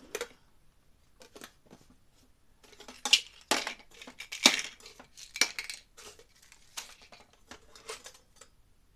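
Loose metal screws clinking and rattling as a hand rummages through a container of them: irregular short clatters, busiest and loudest in the middle.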